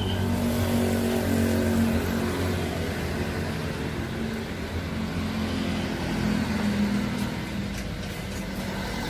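Diesel engine running with a steady low hum, swelling slightly about a second in and again past the middle.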